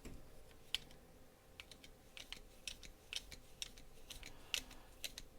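Light, irregular clicks and taps of small metal knife parts being handled and fitted together as a folding knife is reassembled.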